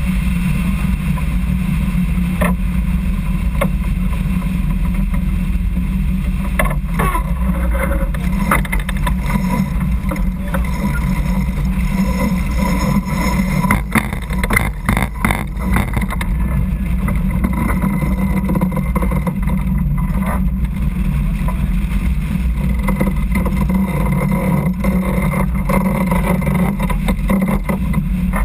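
Steady low rumble aboard a sailing yacht under way, with a cluster of sharp knocks and clicks about halfway through.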